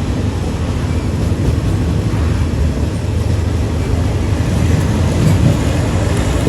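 Passenger train running, a steady low rumble with no breaks.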